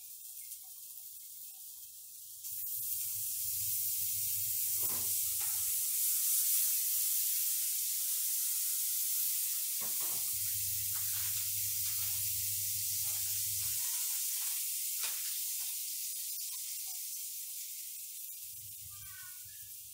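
Fat sizzling in a hot frying pan on a gas stove: a loud hiss that starts suddenly about two seconds in and slowly dies down, with a few light knocks.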